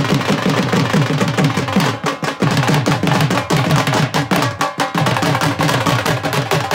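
Dhol drumming: fast, even strokes, the deep beats each dropping slightly in pitch.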